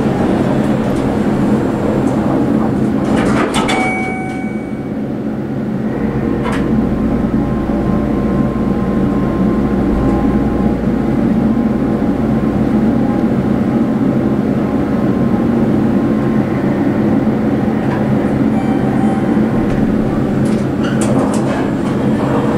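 Schindler hydraulic elevator ride up one floor, heard from inside the cab: a steady loud hum of the cab fan and machinery throughout. The doors slide shut early with a short electronic tone, a deep rumble runs while the car travels, and the doors slide open near the end.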